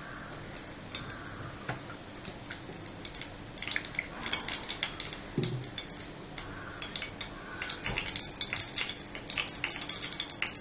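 Oil heating in a frying pan, with scattered small pops and crackles that thicken into a steady sizzle about eight seconds in.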